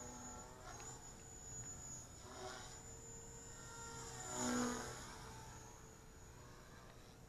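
Oxy 2 Stretch electric RC helicopter flying at low head speed, about 3,700 rpm: a faint rotor and motor whine that rises and falls in pitch as it manoeuvres, loudest about four and a half seconds in.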